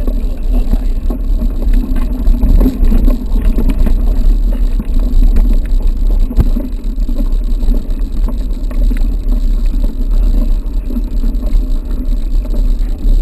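Mountain bike ridden over a trail, heard through an action camera: a steady wind rumble on the microphone, with frequent rattles and knocks from the bike over rough ground.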